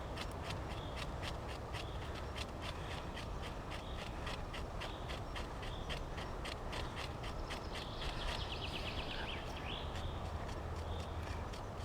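Knife blade scraping bark into fluffy tinder in quick, even strokes, about three to four a second. A short bird trill comes in about eight seconds in.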